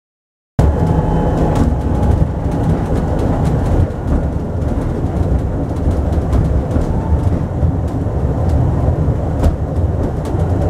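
Drewry diesel railcar running along the line, heard inside its cab: a steady low engine drone with a few sharp clicks from the wheels over the track. It cuts in suddenly about half a second in.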